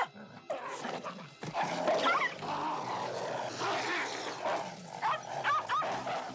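Dogs in a fight: a noisy din with short high yelps about two seconds in and again around five to six seconds in.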